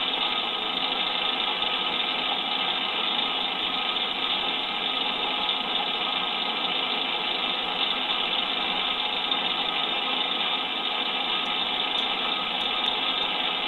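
A 3-in-1 lathe's milling head running steadily as an end mill cuts a slot in a faceplate, making an even machine drone with many steady tones.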